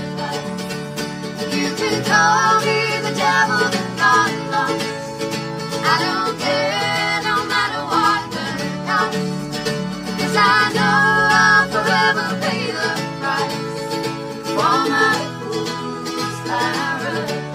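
Live acoustic band: two acoustic guitars strumming and a mandolin picking, with voices singing over them in harmony.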